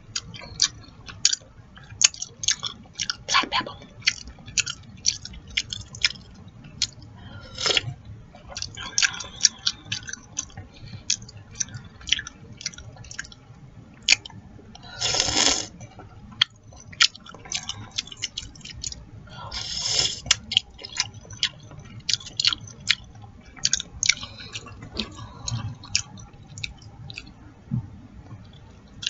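Close-up eating sounds from chicken noodle soup: wet chewing and lip smacking as many short clicks, with a longer slurp about halfway through and another about two-thirds of the way in.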